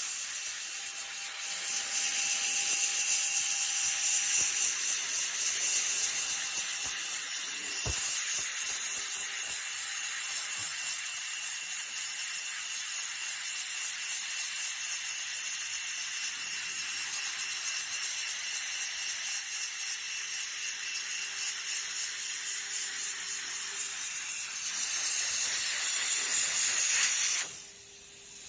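Plastic welding gun running with a steady hiss of blown air and a faint whine. It drops away briefly near the end.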